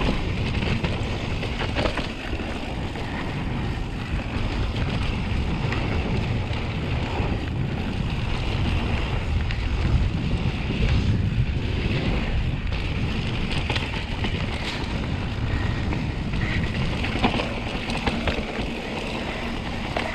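Mountain bike descending a dirt trail: wind buffeting the action camera's microphone over the rumble of the tyres on the ground, with scattered knocks and rattles from the bike over bumps.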